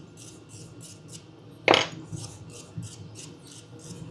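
A single sharp metallic clack just under two seconds in, a metal tool or part knocked or set down on the workbench, over a faint rapid ticking of about three ticks a second.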